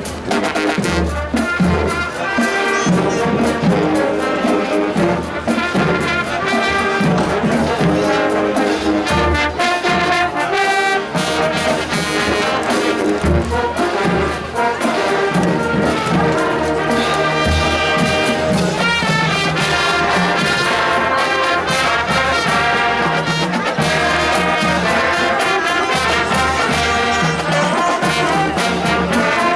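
High school marching band playing, with trumpets and trombones carrying the tune over a steady drum beat.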